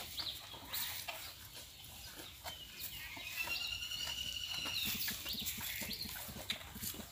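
Birds chirping, with one long drawn-out call that rises slightly, holds and falls away, a little past three seconds in.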